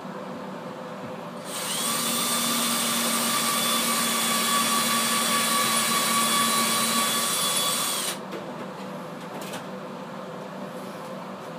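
Electric power drill spinning up about a second and a half in, running at steady speed for about six seconds, then stopping.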